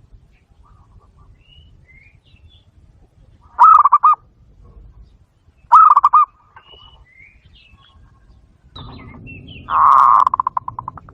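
Zebra dove calling: loud bursts of rapid, staccato cooing notes, twice in quick succession, then a longer run whose notes trail off near the end.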